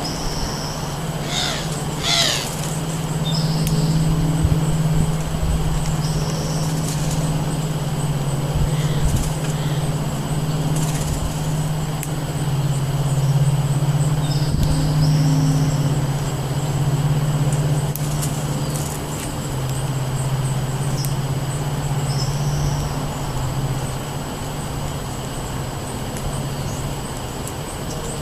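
Wild songbirds giving short high chirps every few seconds over a steady low hum and wind. There are two quick swishes about two seconds in.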